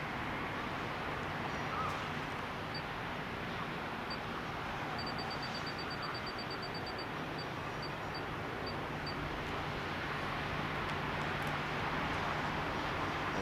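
Steady outdoor background rumble of distant road traffic with a faint low hum, and a run of faint, quick high-pitched ticks from about three to nine seconds in.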